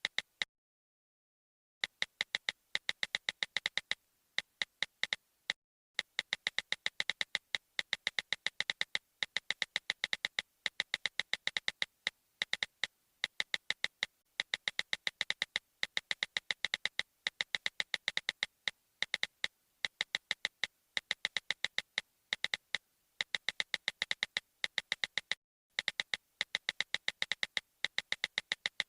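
Quiet electronic music made of rapid, uneven clicks, about ten a second, after nearly two seconds of silence at the start and with a couple of short breaks.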